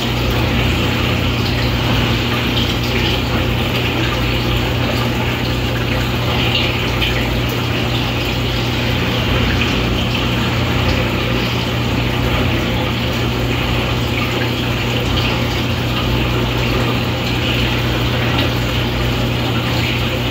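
Aquarium water pump running with water splashing and trickling, over a steady hum.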